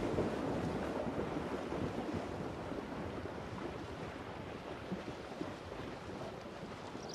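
Wind blowing steadily: a rushing noise without tones that eases slightly toward the end.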